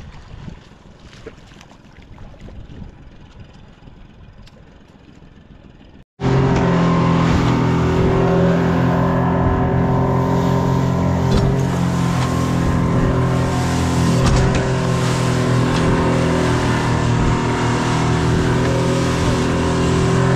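Boat's outboard motor running steadily at speed, with wind and water hiss. It starts abruptly about six seconds in, after a few seconds of faint low sound.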